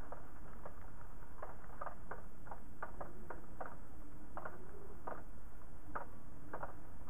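Raindrops and drips tapping irregularly, about two sharp ticks a second, over a steady low rush of wind and rain.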